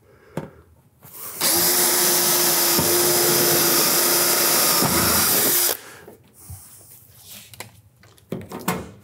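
Cordless drill running steadily for about four seconds, drilling a rivet hole through the steel ridge flashing into the Z-closure beneath. It starts about a second and a half in and stops suddenly.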